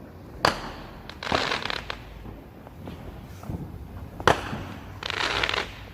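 Consumer fireworks going off in the neighbourhood: two sharp bangs, each followed about a second later by a short crackling burst, with a few smaller pops between.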